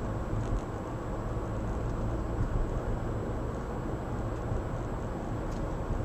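Steady road and engine noise heard inside a car's cabin while driving at highway speed.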